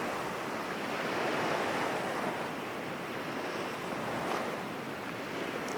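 Background sound effect of ocean waves, a soft steady surf that swells gently.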